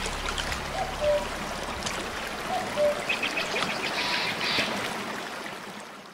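Steady flowing water of a stream or river, with a few short chirps, fading out near the end.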